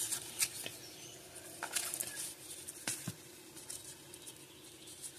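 1990 Upper Deck baseball cards being shuffled through by hand: irregular papery slides and light card-edge clicks, over a faint steady hum.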